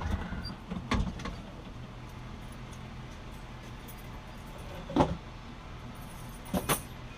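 A few sharp, brief knocks and clinks of things being handled: one about a second in, a louder one near the five-second mark, and a quick double one near the end. A faint steady low hum runs underneath.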